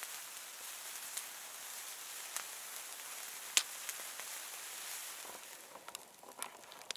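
Hand-held sparklers fizzing: a steady hiss with a sharp crackle now and then, about once a second. Near the end the hiss fades and a few soft crackles remain.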